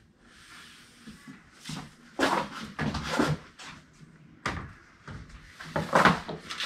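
Wooden split door jamb being pulled apart by hand, the two halves scraping and knocking against each other and the door in a series of separate wooden knocks and scrapes.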